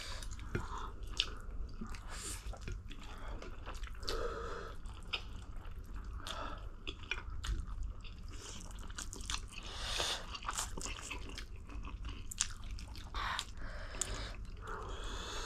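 Close-miked mukbang eating sounds: chewing and biting with many small wet mouth clicks and smacks, as spicy ramen noodles and side dishes are eaten.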